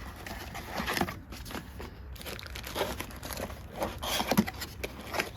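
Packaging being handled as a boxed keypad deadbolt lock is unpacked: irregular crinkling and rustling of paper and plastic wrapping, with small taps and scrapes of cardboard.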